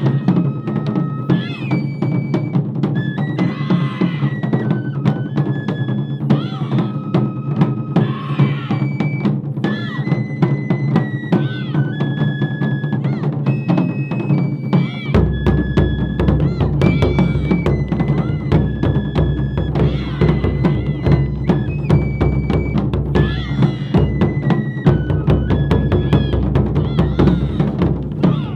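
Japanese taiko drum ensemble playing a fast, dense rhythm, with a high melody of held notes over the drumming. A deep bass drum joins about halfway through.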